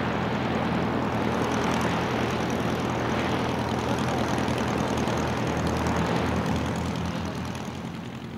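Light motor glider's piston engine and propeller running steadily as the aircraft rolls across the grass, the drone dropping away near the end.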